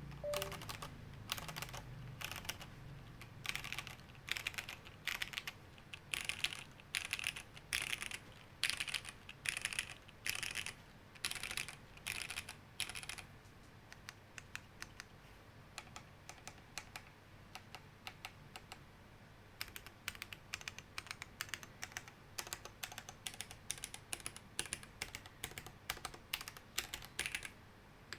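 Typing on a mechanical keyboard with Cherry HB (hairy black) linear switches, Cherry stabilizers and a sandwich-mount case: quick runs of keystrokes, thinning to a few scattered strokes in the middle before fast typing resumes.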